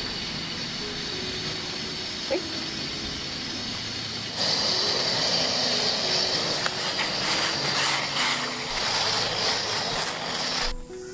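Portable gas canister stove's burner hissing steadily under a small steel pan of tea, with one brief sharp sound about two seconds in. About four and a half seconds in, the louder, fuller bubbling of the tea coming to the boil takes over, and it stops suddenly near the end.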